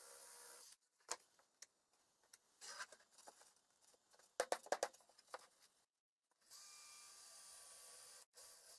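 Cordless drill boring into an old furniture panel, which breaks off. Then several wooden knocks and clicks as the panels are handled, loudest about halfway through. Near the end the drill bores into the panel again.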